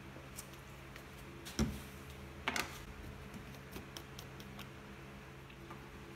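Plastic bleed syringes and a fluid bottle being handled on a wooden workbench: a knock about a second and a half in, a short scrape about a second later, then a few light clicks, over a steady low hum.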